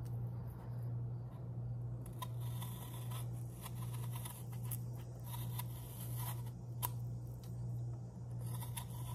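Kitchen knife paring the skin off an apple: irregular short scraping, slicing strokes that begin about two seconds in, with a sharp click near the end. A steady low hum runs underneath.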